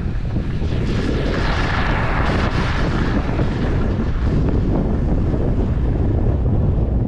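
Wind buffeting the microphone of a camera carried at speed down a groomed ski run, with a low rumble and the hiss of snow sliding under the rider's edges. The hiss swells for a couple of seconds about a second in.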